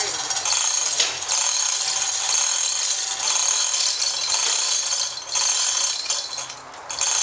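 Manual chain hoist being worked by its hand chain: a steady metallic clatter of chain links and ratchet clicking, with a few short pauses between pulls.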